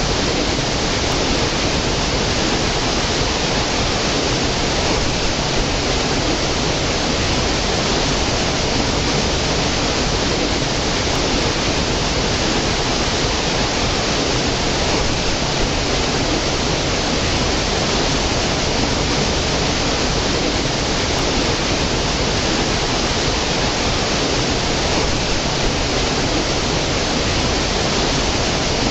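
Small mountain stream cascading over mossy rocks into a pool: a steady, unbroken rush of flowing water.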